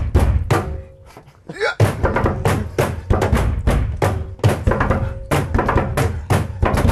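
Two percussionists drumming a quick rhythm on a train carriage's fittings: felt mallets striking the window pane and wall panels and bare hands beating the ledge and table. About a second in the beat breaks off briefly, a short gliding tone sounds, and the drumming picks up again.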